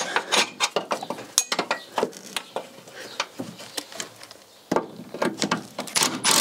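Metal hand tools clinking and tapping against bolts and brackets as a half-inch socket is worked onto an engine-mount bolt in a car's engine bay: irregular light clicks and clinks.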